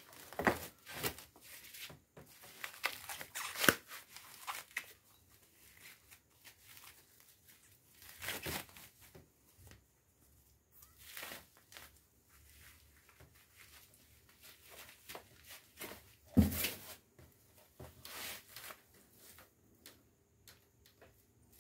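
Plastic wrapping rustling, crinkling and tearing in irregular bursts as wrapped engine parts are pulled out of a styrofoam box and unwrapped, with one heavier thump about three-quarters of the way through.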